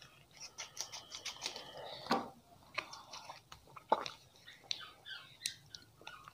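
Crinkling and tearing of a small chocolate's paper wrapper as it is unwrapped by hand: a run of sharp crackles and clicks, with two louder snaps about two and four seconds in.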